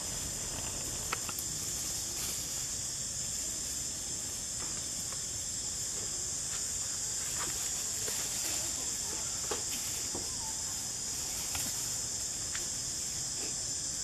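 Steady high-pitched drone of forest insects, with a few faint scattered clicks.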